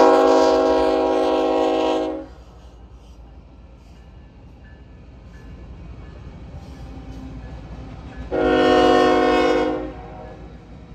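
Union Pacific diesel locomotive air horn sounding two blasts. The first is already sounding at the start and cuts off about two seconds in. A second, shorter blast comes about eight seconds in. Between the blasts is the low steady rumble of the moving freight train.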